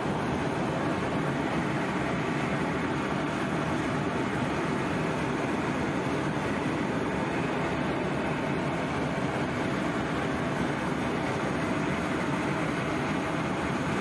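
Steady, unchanging engine noise of an aircraft in flight, heard from inside the cabin.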